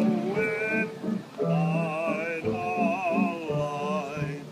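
A man singing with wide vibrato in long, held notes, with a short break about a second and a half in.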